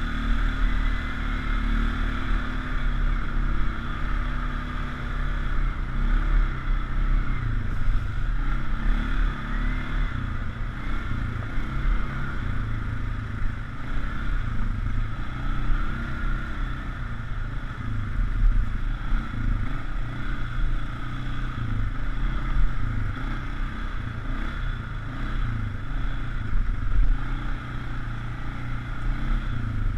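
2004 Polaris Sportsman 500 HO ATV's single-cylinder four-stroke engine running under way on a dirt trail, heard from the rider's seat, its note rising and falling as the throttle is worked.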